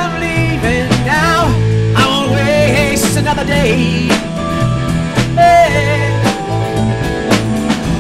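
Rock band playing live: electric guitars, bass guitar, drum kit and keyboard, with a male lead vocal singing over them.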